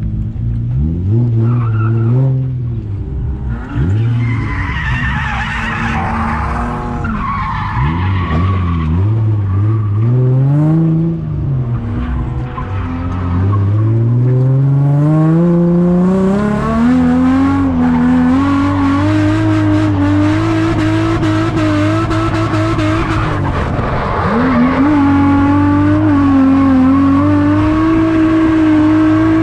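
Drift car engine revving up and down several times, then climbing and held at high revs with small wobbles, dipping once near the end, while the tyres squeal as the car drifts.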